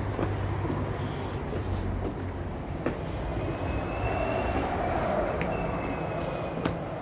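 City street traffic with a bus engine running steadily nearby, and a brief high squeal about four seconds in.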